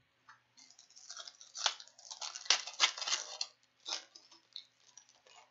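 Foil wrapper of a hockey trading card pack crinkling and crackling as it is handled and opened, in a dense run of crackles from about a second in to about four seconds.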